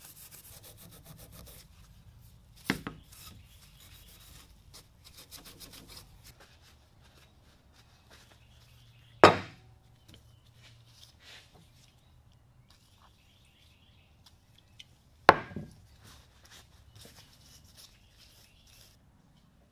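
Abrasive paper scrubbed in quick strokes over the rusty metal of an old Stanley No. 4 hand plane, in two short spells. Three sharp knocks break in, the loudest about nine seconds in.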